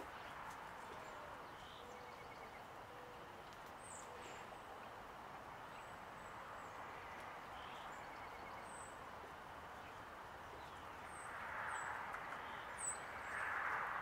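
Faint, brief, very high songbird chirps, heard a few times over a steady outdoor background hiss. A sharp click comes right at the start, and the background swells twice near the end.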